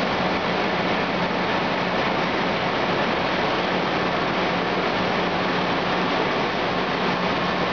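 Perfect Engineering high-production textile carding machine running at speed: a steady, even mechanical rushing noise with a low hum underneath.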